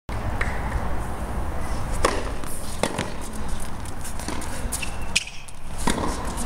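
Tennis rally on a hard court: a handful of sharp pops of the ball off the strings and the court, one to two seconds apart, over a steady low rumble.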